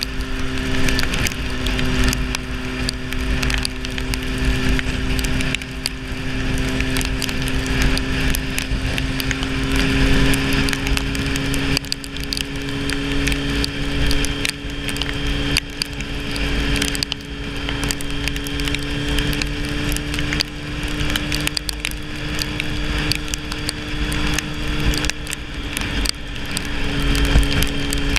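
Sport motorcycle engine running at a steady cruise, a continuous hum whose pitch creeps slightly upward, over constant wind rush on the microphone with frequent crackles.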